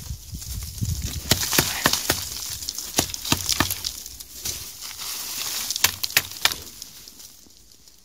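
Dry brush and twigs crackling and snapping in irregular sharp cracks, dying away about seven seconds in.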